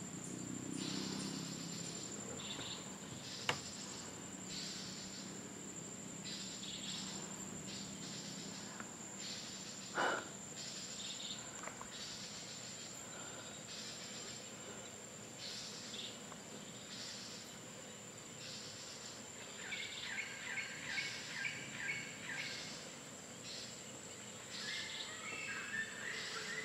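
Tropical insect chorus: a steady high-pitched trill, with a chirp pulsing on top about once a second. A click comes about three and a half seconds in, a short louder note about ten seconds in, and a quick run of lower chirps about twenty seconds in.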